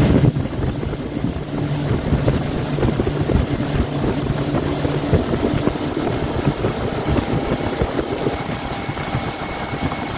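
Outboard motor of a Carolina Skiff running under way, with wind buffeting the microphone and water rushing past the hull. A low steady engine hum is clearest in the first half.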